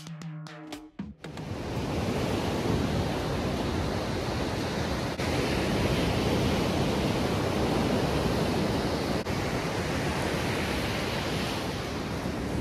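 Rough sea surf breaking and washing up a beach, a steady rushing noise with wind on the microphone. A short tail of music stops about a second in.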